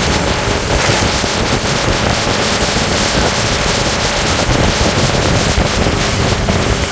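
Motorboat under way on a river: wind buffeting the microphone over the steady rush of water along the hull, with the boat's motor running beneath.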